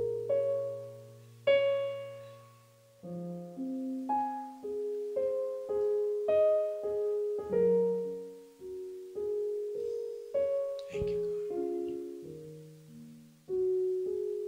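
Soft keyboard music in a piano sound: slow chords and single notes struck about once a second, each ringing and fading before the next.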